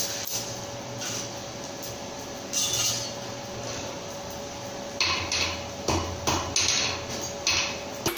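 Blacksmith's hammer striking hot steel on an anvil in a run of about half a dozen blows from about five seconds in. Before that a steady forge-blower hum, with a few metal clinks.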